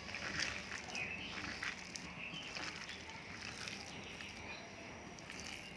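A hand squishing and mixing thick semolina-and-curd pakora batter with mashed potato, raw banana and chopped onion in a glass bowl. The sound is faint, irregular wet squelches and small clicks, busier in the first two seconds.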